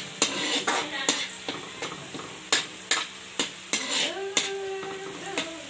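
Minced garlic and chopped red chili sizzling in hot oil in a wok, while a metal spatula stirs them, scraping and clacking against the wok in sharp, irregular strokes.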